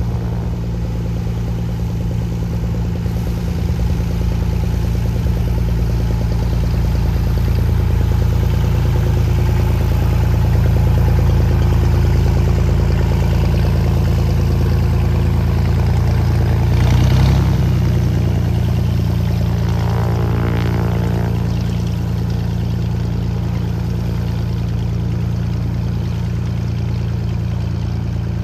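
Cirrus SR22T's turbocharged six-cylinder engine and three-blade propeller running steadily at taxi power. It grows louder toward the middle as the plane passes close, peaks briefly about two-thirds of the way in, then eases slightly as it moves away.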